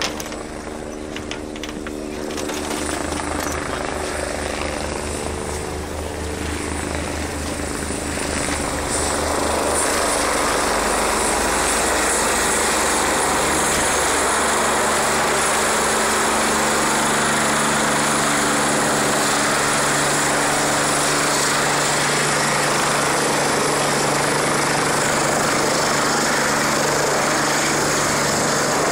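Red rescue helicopter coming in to land close by. At first its rotor beats and its engine hums in a steady pitch. About nine seconds in it grows louder into a steady rushing noise as the rotor downwash blows up the snow.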